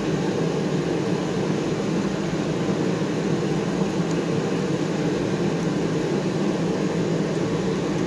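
Steady low rushing drone of background machinery, even and unchanging, with no distinct tool sounds.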